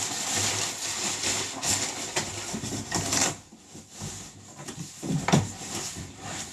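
Crumpled packing paper rustling and crinkling as it is pulled out of a cardboard shipping box, stopping about three seconds in. Then cardboard scraping and knocking as the inner box is lifted out, with one sharp knock about five seconds in.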